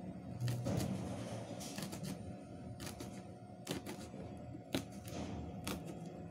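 Small knife slicing red chili peppers against a plastic container, giving irregular sharp clicks and taps, roughly one or two a second.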